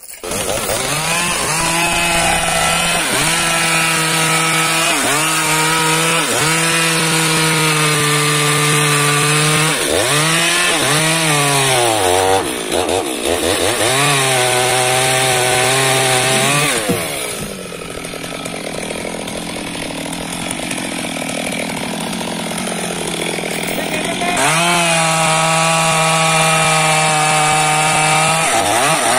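Two-stroke chainsaw running at high revs and cutting wood, its pitch sagging briefly again and again as the chain bites. Partway through it drops to a quieter, rougher sound for several seconds, then returns to a steady high-revving whine.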